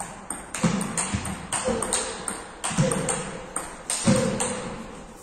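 Table tennis rally: the plastic ball clicking off the bats and bouncing on the table, a sharp knock roughly every half second, several with a short ringing ping. The strokes stop about four and a half seconds in as the point ends.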